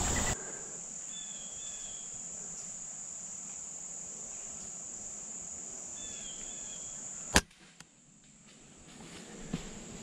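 A single sharp shot from a Gamo Whisper Fusion Mach 1 .22 break-barrel air rifle about seven seconds in, over a steady high drone of insects; a bird chirps briefly twice before the shot.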